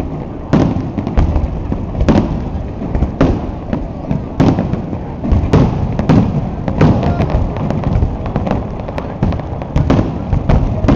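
Aerial fireworks shells bursting in quick succession, about one or two booms a second, over a continuous low rumble.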